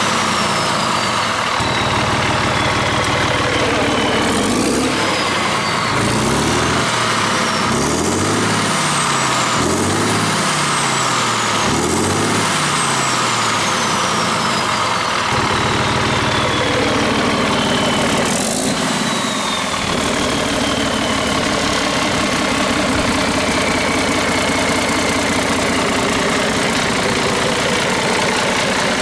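Cummins QSM11 six-cylinder marine diesel with a water-jacketed turbocharger running at about 1,400–1,500 rpm on a test stand. For the first half its note rises and falls every couple of seconds, and a high turbo whistle jumps up and glides down each time; it then settles into a steadier run.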